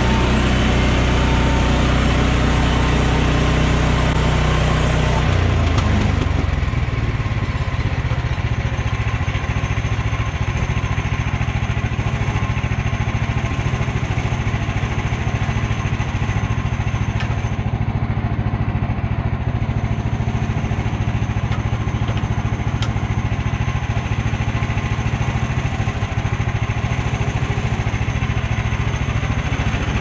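Woodland Mills HM130 portable sawmill's gasoline engine running fast for the first few seconds, then throttled back about five seconds in to a steady idle.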